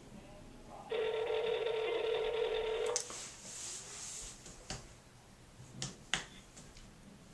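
Telephone ringback tone: one steady ring about two seconds long while a call waits to be answered, followed by a few sharp clicks.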